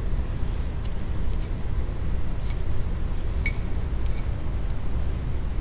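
Light clicks and clinks of metal oil-filter base plates handled in gloved hands: several small ticks spread over a few seconds, over a steady low background rumble.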